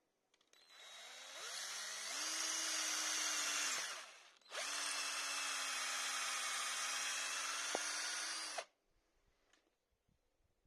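Cordless drill boring into a small block of wood, in two runs. The first winds up over about a second and runs for about three seconds; the second starts at full speed about four and a half seconds in, runs steadily for about four seconds and stops.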